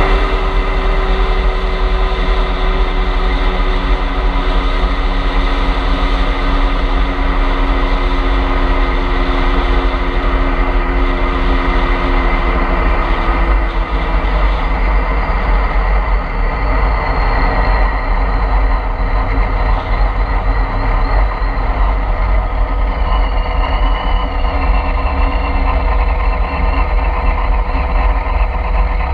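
Supercharged C6 Corvette Z06's 7.0-litre V8 running steadily at low speed, with a deep even rumble and no hard revving.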